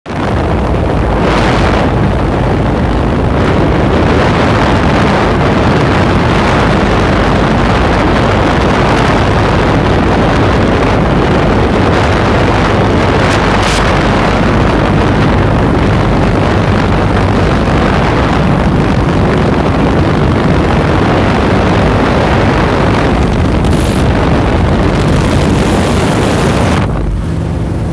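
Light aircraft in flight, heard from inside the cabin: the engine and propeller run steadily under heavy wind rush, easing a little near the end.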